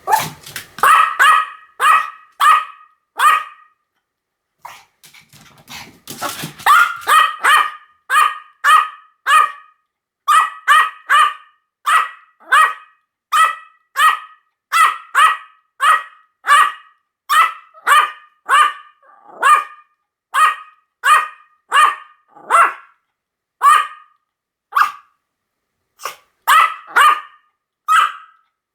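Pomeranian barking over and over in short, sharp, high-pitched barks, about one to two a second, with a brief pause about four seconds in.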